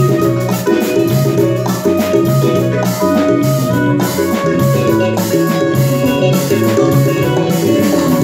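A small live band plays an instrumental passage: a drum kit, tabla and electronic percussion pads keep a busy rhythm under a bright, sustained melodic line.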